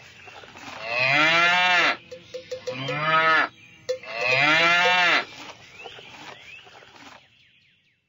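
A cow mooing three times, each moo about a second long and falling in pitch at its end.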